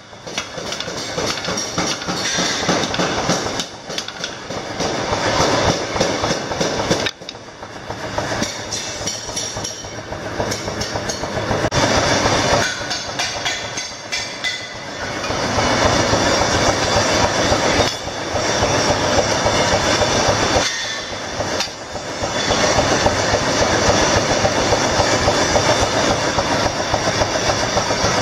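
Mechanical power hammers pounding hot machete-blade steel, a fast, continuous clatter of heavy blows, easing briefly about seven seconds in and again around twenty-one seconds.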